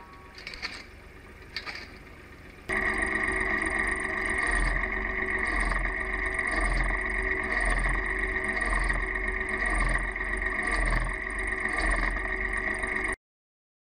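Engine-driven homemade firewood cutting machine running steadily under load, with a low pulse repeating a little faster than once a second as branches are fed through. Light knocks come first; the loud running starts suddenly about three seconds in and cuts off abruptly near the end.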